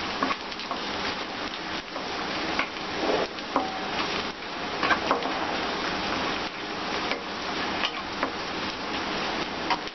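Sliced onions, garlic and bay leaves sizzling steadily in hot mustard oil in a kadhai, stirred with a wooden spatula that scrapes and knocks against the pan every second or so.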